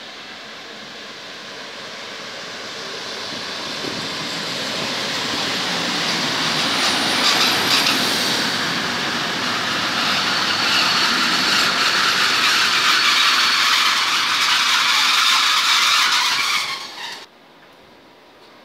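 Yellow NS electric multiple-unit passenger train running close past on the platform track: wheels on rail and running gear grow louder as it nears, hold at a steady loud level with a high whine, then cut off suddenly about 17 seconds in.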